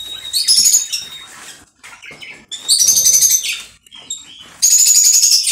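Budgerigars calling in three loud bursts of rapid, high-pitched chirping, each about a second long, with small knocks from the wooden nest box being handled between them.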